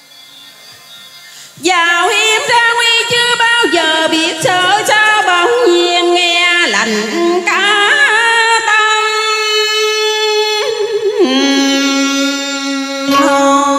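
A woman sings a sliding, melismatic cải lương (Vietnamese reformed opera) vocal line through a microphone and PA, with music. The singing comes in about a second and a half in, after a quiet opening.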